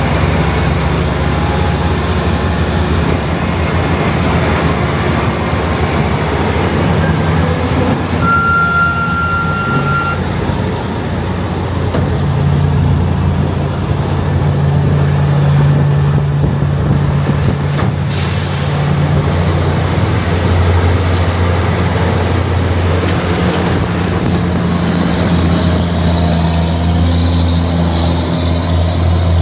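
Heavy diesel farm machinery running steadily at corn silage harvest, with a steady beep lasting about two seconds around eight seconds in and a short burst of hiss a little past the middle.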